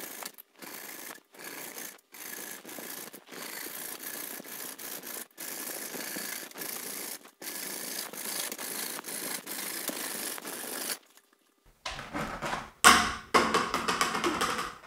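Junior hacksaw sawing through a grey plastic HT drain pipe: rough rasping strokes with short breaks, stopping about eleven seconds in. About a second later come a loud knock and clatter.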